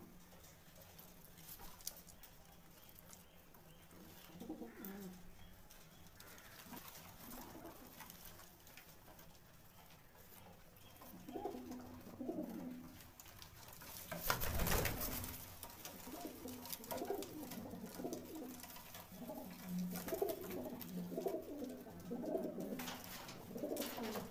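Domestic high-flying pigeons (Aseel flyers) cooing in a small loft, the low warbling coos coming more often after the first few seconds. A brief, loud burst of noise about two-thirds of the way through.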